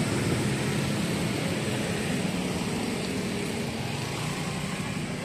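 Busy city street traffic: a steady drone of passing engines that slowly fades.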